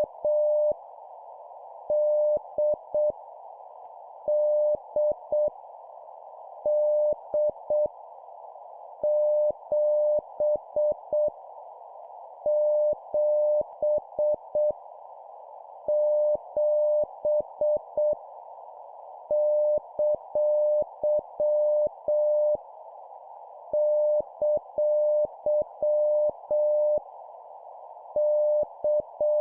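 Morse code (CW) practice tone at 7 words per minute: a single steady mid-pitched tone keyed into dots and dashes, sending random letters, numbers and punctuation with each character repeated three times, in groups of two to three seconds with short pauses between. A steady hiss, like a receiver's filtered band noise, sits under the tone.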